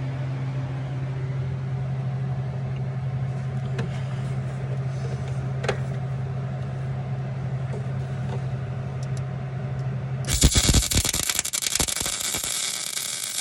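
A steady low hum, then a welding arc crackling loudly for about three seconds near the end as a tack weld is struck on a skid steer's muffler, cutting off suddenly.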